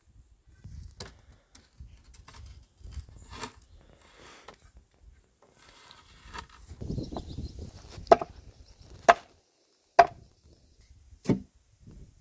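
A long-handled digging tool scraping and crunching into stony soil, then four sharp chopping strikes about a second apart near the end.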